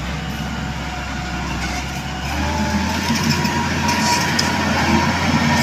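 Mitsubishi motor grader's diesel engine running as the grader drives up close, its steady low engine sound growing louder from about two seconds in.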